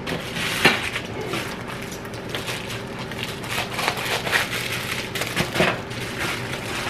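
Shipping packaging being handled and torn open: a run of crinkling and crackling with a few sharper snaps, the loudest about half a second in.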